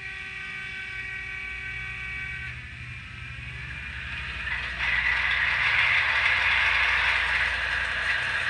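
The diesel prime mover sound of the N scale Union Pacific GTEL turbine A unit, played by its ESU LokSound 5 decoder through the model's small speaker. It is a running engine sound with a low, evenly pulsing rumble. A set of steady tones in it drops out about two and a half seconds in, and the sound grows louder and rougher from about five seconds in.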